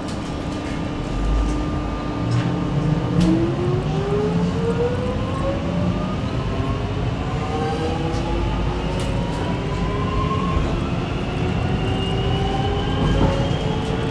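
Alstom X'Trapolis 100 electric multiple unit heard from inside the carriage as it pulls away from a station. The traction motor whine rises slowly and steadily in pitch in several tones from about three seconds in as the train accelerates, over a low rumble.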